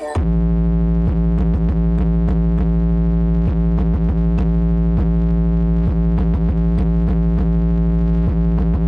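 Huge truck-mounted carnival sound system (horeg) playing loud electronic music: a held synthesizer chord over heavy sub-bass that comes in abruptly, with many short falling pitch sweeps running through it.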